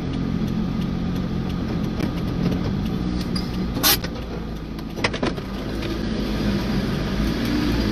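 Steady low hum of a running motor vehicle engine over street noise, with a sharp click about four seconds in and a few smaller clicks about a second later.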